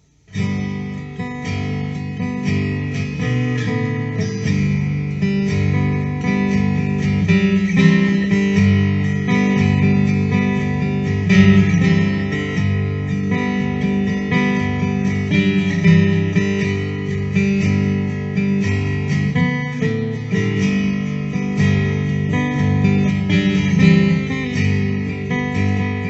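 Instrumental acoustic guitar music, played steadily without singing.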